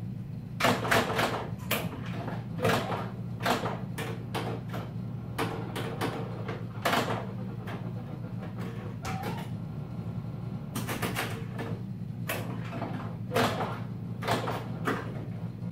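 Bally Flash Gordon pinball machine being played: flippers and playfield solenoids fire in irregular clusters of sharp clacks and knocks, over a steady low hum.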